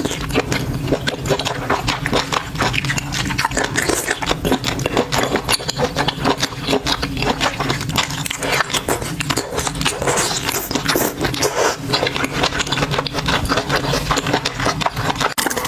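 Close-miked biting and chewing of seafood: a dense run of wet, irregular crunching and crackling mouth sounds.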